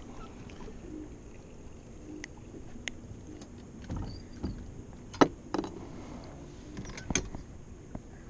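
A few scattered knocks and clicks of gear and fish being handled on a fishing boat, the sharpest one about five seconds in, over a steady low background of wind and water.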